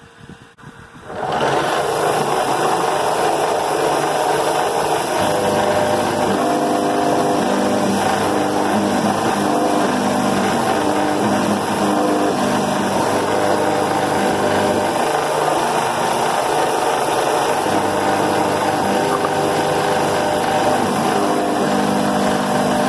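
Hobby CNC mill cutting a metal block with an end mill: the spindle and the cut make a steady machine noise, with tones that change pitch in steps as the machine moves. It starts suddenly about a second in.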